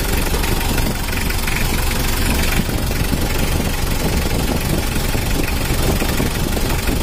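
Mitsubishi L300's 4D56 four-cylinder diesel engine idling steadily with its rapid diesel clatter, freshly tuned, its valve clearances and injection pump just set.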